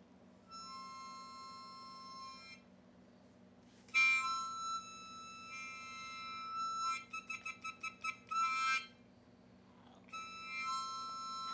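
Harmonica played in long held chords, three phrases with short gaps between them, the middle one loudest and ending in a run of quick short notes. A schnauzer's brief howl rises near the end.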